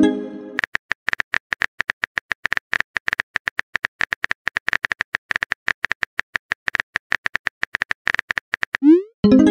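Phone texting-app sound effects: rapid, uneven keyboard-tap clicks for most of the time as a message is typed, then near the end a quick rising swoop and a ringing pop as the message is sent. A similar pop fades out at the very start.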